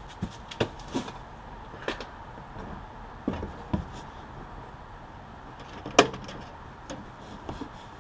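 Pliers clicking and knocking against a brake-line bracket and the frame as the bracket is worked into place: a handful of short, scattered clicks, the sharpest about six seconds in.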